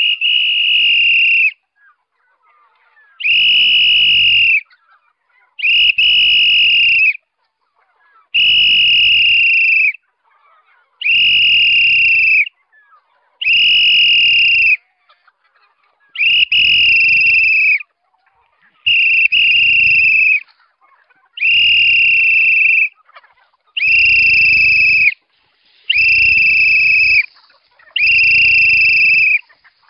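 A person whistling a long, steady, high note over and over, about a dozen whistles each lasting about a second and a half with a short gap between. The whistling calls free-range chickens in to be fed.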